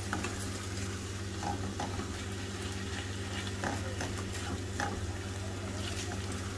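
Chicken and onions in a flour-and-milk sauce sizzling gently in a nonstick pan while a spatula stirs through it, with a few short scrapes against the pan; the sauce is beginning to thicken. A steady low hum runs underneath.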